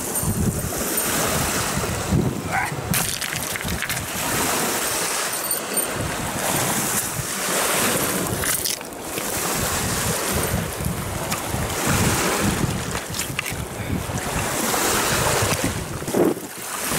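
Strong gusty wind buffeting the microphone over small waves breaking on a pebble shore, with a few crunches of boots on the stones.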